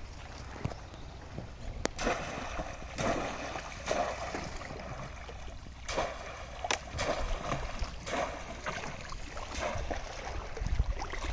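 Water splashing and sloshing in repeated bursts as a bamboo fish trap is plunged into shallow water and worked by hand beside a wooden boat.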